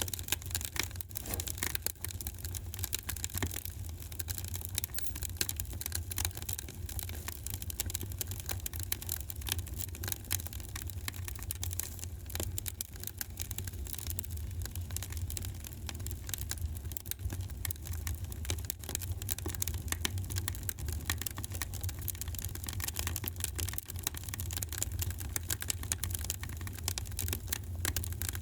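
Wood fire in a fireplace crackling steadily: a dense, irregular run of small pops and snaps over a low, steady rumble.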